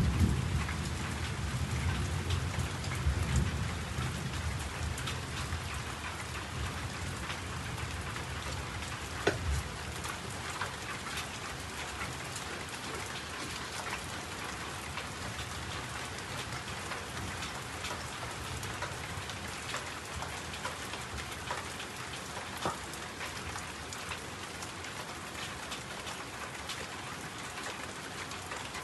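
Steady rain falling, with many drops tapping. A low rumble of thunder fades out by about ten seconds in.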